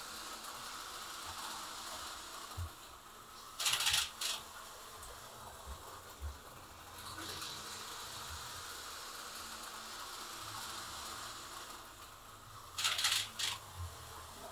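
Two short bursts of light plastic clicking and clattering, about nine seconds apart, as an HO-scale slot car is handled and set down on the plastic track, over a faint steady hum.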